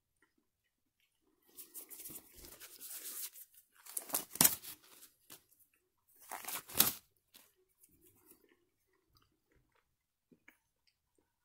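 Blue disposable gloves being pulled off the hands: a crackling rustle from about a second and a half in, with two loud sharp bursts at about four and a half and seven seconds.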